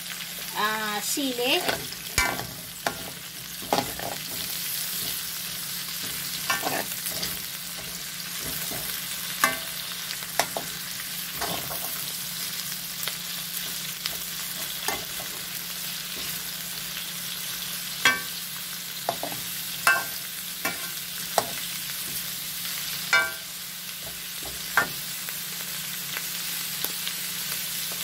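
Vegetables sizzling in a metal wok while a perforated metal skimmer ladle stirs them, scraping the pan and striking its side in sharp clinks every few seconds.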